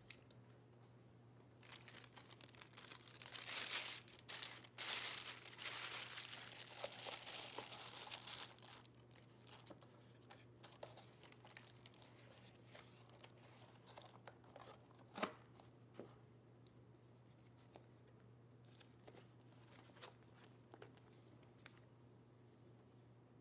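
Plastic bag crinkling and rustling for several seconds as a used toner cartridge is packed into it. After that come fainter handling noises from cardboard box flaps and paper, with a few soft clicks.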